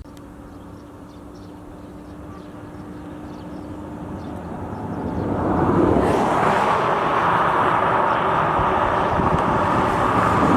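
A motor vehicle drawing near: a low engine hum gives way to steadily rising engine and road noise that grows for about six seconds and then holds loud and steady.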